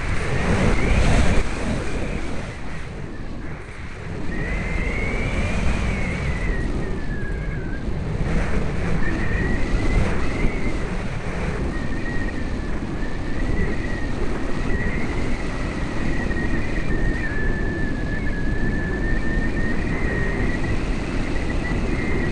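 Sky Surfer RC plane's electric motor whining, its pitch wandering up and down, under heavy wind rush on the microphone, with a loud gust about a second in.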